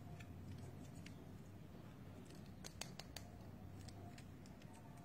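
Faint clicks and light handling of a hard plastic building-block toy figure, with a quick run of about four sharper clicks about three seconds in, over a low steady hum.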